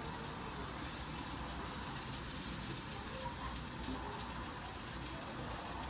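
Hot dogs sizzling on a grill, a steady crackling hiss.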